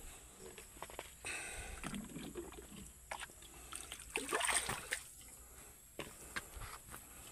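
Water sloshing and splashing as a small plastic bucket is dipped into a shallow rocky pool and lifted out full, the loudest splash about four seconds in, with a few brief knocks.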